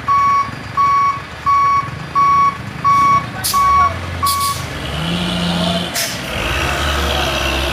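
A truck's reversing alarm beeping steadily, about three beeps every two seconds, stopping about four and a half seconds in. Under and after it a heavy truck's diesel engine runs and swells, with a few short sharp sounds, the last about six seconds in.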